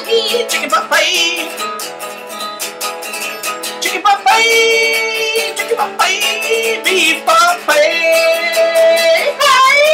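A man singing a simple made-up tune while strumming a hollow-body electric guitar, his voice holding notes and sliding between them over steady chords.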